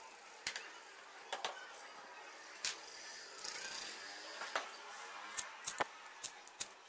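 Sharp clicks and taps of a plastic phone case, a small bracket plate and a lighter being handled on a table, about ten in all and bunched near the end, with a brief rustling scrape just after the middle.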